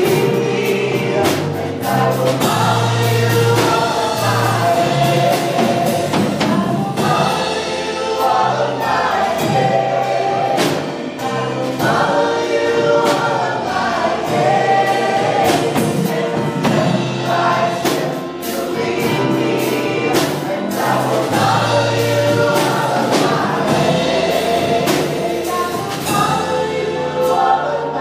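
Live church worship band playing a praise song: several voices singing together over a drum kit, keyboard and a steady bass line, with regular drum strokes.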